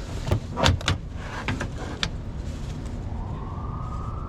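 A few sharp clicks and knocks of handling, then a power drill's motor spins up about three seconds in, a whine that rises in pitch and then holds steady.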